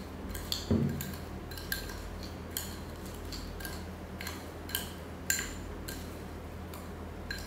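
Metal spoon clinking against a glass bowl while stirring pieces of fruit coated in chili powder and sugar: light, irregular clinks about one or two a second, with a dull thud about a second in.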